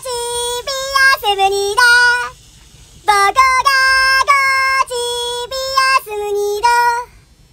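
A high voice singing a melody of short held notes, in two phrases with a pause of under a second between them.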